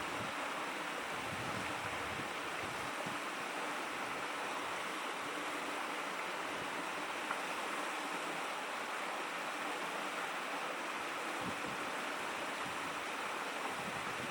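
Shallow stream babbling steadily over stones, an even rushing of water.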